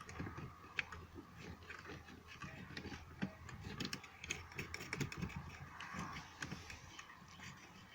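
Faint, scattered small clicks and light knocks of hands working at a car dashboard, fitting the retaining nut and plastic cover back onto a headlamp switch.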